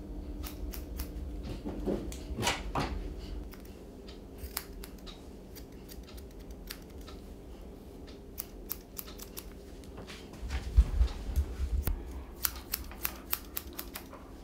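Grooming scissors snipping through an Airedale Terrier's wiry coat in quick irregular runs of snips, with a few dull low knocks about ten seconds in.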